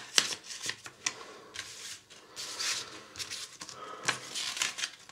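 Plastic DVD cases and a paper booklet being handled: scattered clicks and taps mixed with short rustles of paper.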